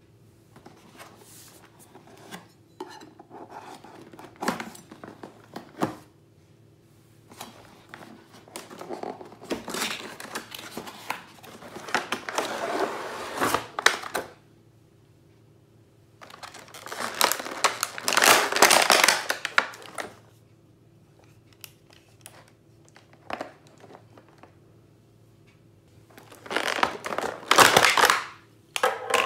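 Clear plastic packaging tray and cardboard box being handled: crinkling and rustling in three bursts of a few seconds each, with scattered clicks and taps between them. A faint steady hum runs underneath.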